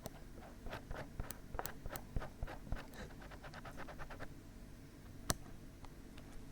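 Dried glue being peeled off a 3Dio binaural microphone's ear, close up: a run of fine crackling ticks, thickest during the first few seconds, with one sharper snap about five seconds in.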